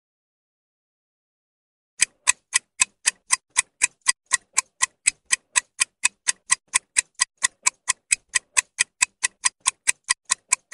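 Clock-ticking sound effect for a quiz countdown timer: sharp, even ticks at about four a second, starting about two seconds in.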